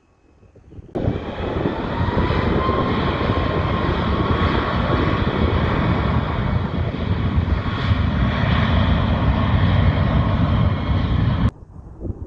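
Airplane engine running loud, a dense roar with a faint whine that rises slightly in pitch about two seconds in. It cuts in suddenly about a second in and cuts off suddenly near the end.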